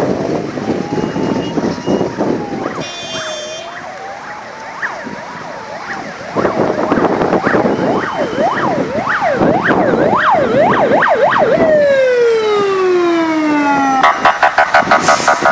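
Emergency-vehicle siren coming closer. It starts as a slow rising and falling wail and gets louder about six seconds in. It switches to a fast yelp, drops in a long falling glide at about twelve seconds, and ends in a rapid pulsing warble.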